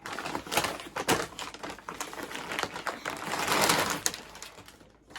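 Packaging being handled and rustled: an irregular run of crackling, clicking sounds, with a longer, denser rustle about three and a half seconds in.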